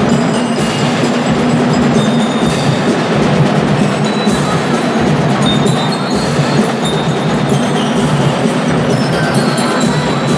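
A marching band playing music, with mallet percussion ringing over sustained notes and drums.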